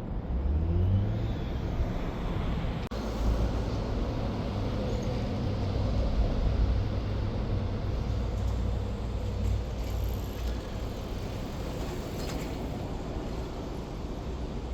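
A motor vehicle running, a low steady rumble whose engine note rises in pitch in the first second or so as it gathers speed.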